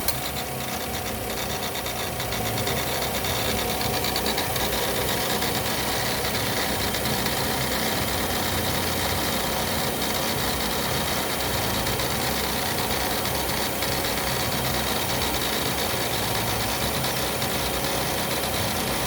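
Fiat Uno Vivace Way engine idling with the air conditioning switched on, with a steady rasping, rubbing noise from the alternator belt area that appears only when the AC is on.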